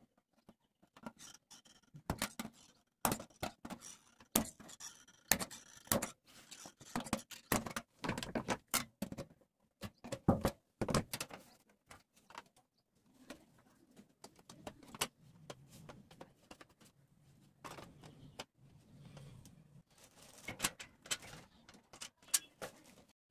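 Thin tinplate from a mustard oil tin being bent and handled with pliers: irregular metallic clicks, clinks and crinkles. They are busiest in the first half, ease off in the middle, and pick up again near the end.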